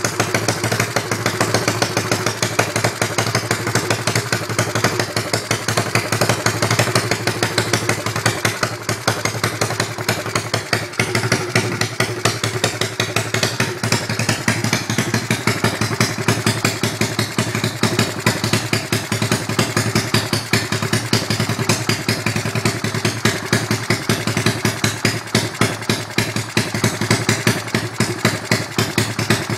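Small 110cc pocket bike engine idling steadily with a fast, even exhaust beat. The bike still has an exhaust leak at the pipe that a new O-ring has not sealed.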